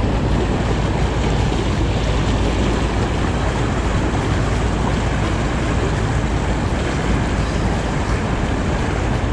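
Fast river current rushing over limestone ledges and rocks: a steady, loud rushing noise with no breaks.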